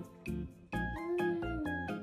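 Background music with a bouncy, regular beat, and a sliding note that bends up and then falls about a second in.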